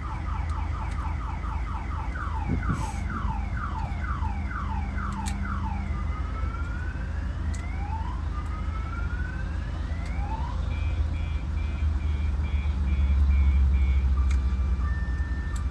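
A Honda's car alarm going off, its siren cycling through tones: a fast run of falling chirps, then slow rising and falling whoops, then a pulsing two-tone warble. A steady low hum sits underneath and grows louder near the end.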